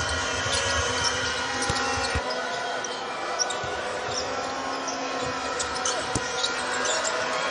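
Basketball bouncing on a hardwood court during live play, with scattered knocks over a steady arena crowd background.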